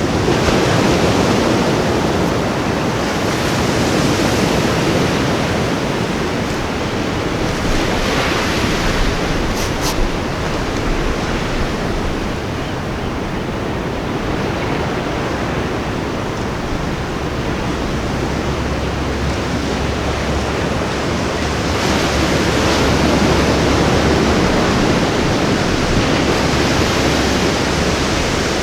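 Ocean surf washing onto a beach: a continuous rush of breaking waves that swells louder every few seconds as each wave comes in.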